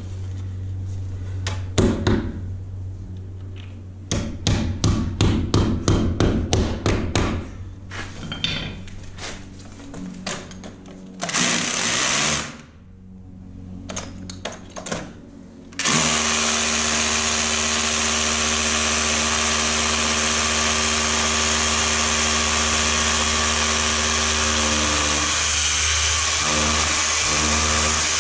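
Cordless hammer drill boring into a concrete ceiling to make holes for wall plugs that will hold a ventilation distribution box. It starts with a short burst near the middle, then runs steadily for about twelve seconds and is the loudest sound. Before that comes a quick run of knocks.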